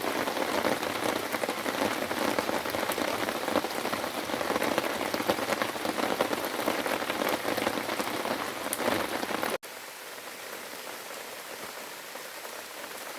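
Steady rain falling and pattering. About three quarters of the way through, the sound drops suddenly to a quieter, thinner rain.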